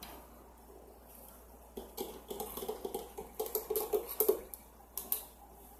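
Ice being crunched and chewed right at a microphone: a quick run of sharp, crackling crunches starting about two seconds in and stopping shortly before the end.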